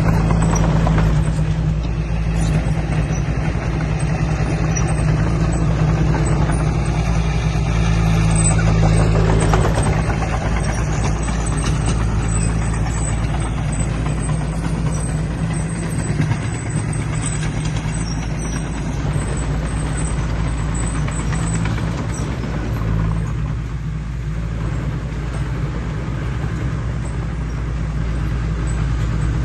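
Heavy diesel earthmoving machinery running steadily, a loud low drone with mechanical noise over it.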